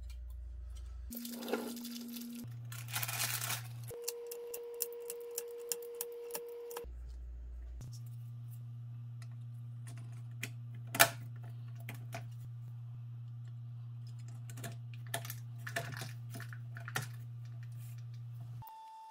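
Hard plastic battery cell holders and cylindrical lithium-ion cells clicking and rattling as they are handled and pressed together, with a quick run of clicks about four to six seconds in and one sharp, loud click about eleven seconds in. Low held tones underneath change pitch every few seconds.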